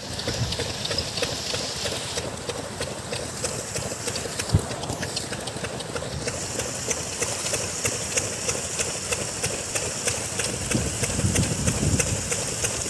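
Paddlewheel aerators running in a shrimp pond: a steady mechanical drone with churning water and a rapid, regular ticking. There is a single sharper knock partway through.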